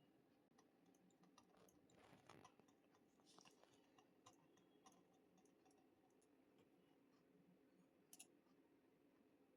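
Faint, irregular computer mouse and keyboard clicks over quiet room tone, in scattered runs with a couple of slightly louder clicks.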